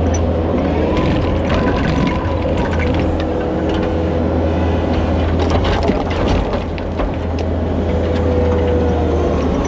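Kubota SVL75 compact track loader's diesel engine running steadily under working load, with many short knocks and clatters of rocks in its rock bucket.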